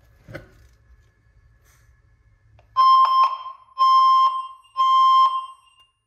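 Fire alarm speaker strobe starts sounding about three seconds in: a loud, steady beeping tone in the temporal-3 evacuation pattern, three half-second beeps with short gaps, then a longer pause. It is the sign that the smoke detector has tripped on smoke from a smouldering tissue held under it.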